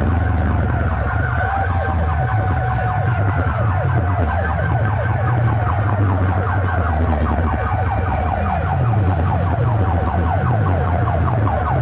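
Huge outdoor DJ box sound system of stacked speaker cabinets blasting a siren-effect competition track. Rapid falling siren-like tones repeat several times a second over a loud, deep bass drone.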